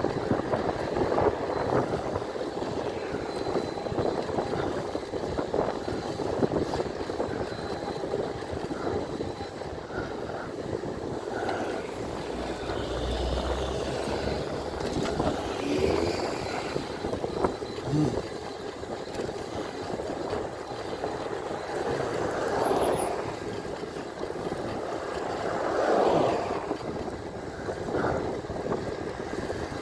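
Steady rush of wind and tyre noise from an e-bike riding along a road. It swells louder a few times as traffic passes.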